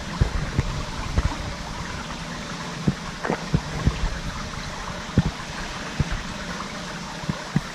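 Water running steadily through an apple flume in a wet-dump unloading line, with irregular low knocks of floating apples bumping against one another and the flume walls.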